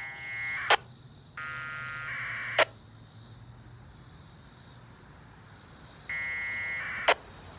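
Kenwood TH-D74A handheld radio's speaker playing 1200-baud packet data received over the air from a Winlink VHF server. There are three short bursts of data tones, each a second or less long and each ending in a sharp click.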